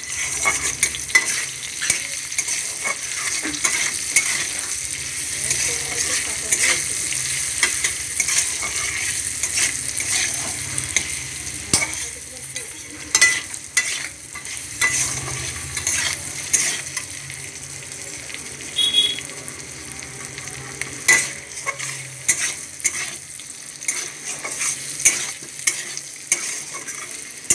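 Potato chunks frying in hot oil in a metal kadai, sizzling steadily, while a metal spatula stirs them, with frequent clicks and scrapes against the pan.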